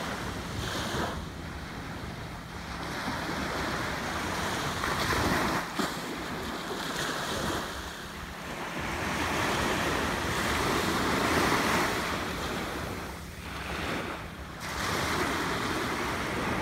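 Small waves breaking and washing up a sandy beach, the surf swelling and easing.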